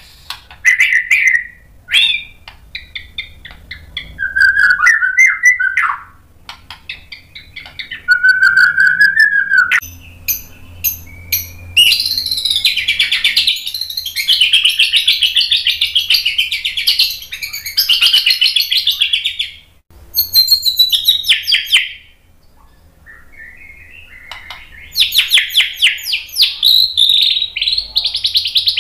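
White-rumped shama (murai batu) singing loudly. It gives separate whistled phrases and sharp notes for the first several seconds, then long runs of fast, high, rapidly repeated notes: its full song with mimicked fill-ins.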